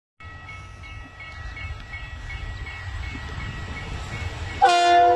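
Ore freight train approaching with a low rumble that grows louder. About four and a half seconds in the locomotive's horn starts suddenly and loudly, a held chord of several tones.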